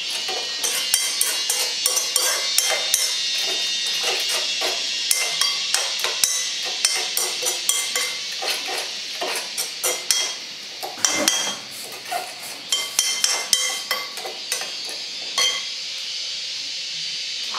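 Metal spoon clinking and scraping against an aluminium bowl as chopped lemongrass and sauce are stirred and tossed, in quick uneven strokes that stop shortly before the end.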